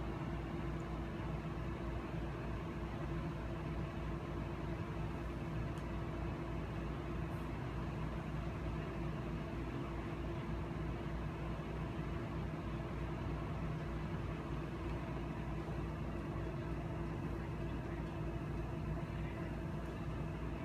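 Steady low mechanical hum with a few constant tones, holding the same pitch and level.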